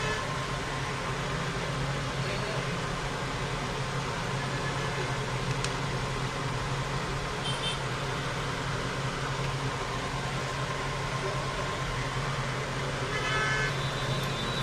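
Steady low hum and traffic noise, with two brief horn toots, one about halfway and one near the end.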